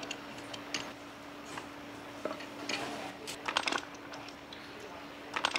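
Light metallic clinks and taps of engine parts being handled and set down on a rickshaw engine's crankcase during assembly, coming irregularly with a small cluster in the middle and another near the end, over a steady faint hum.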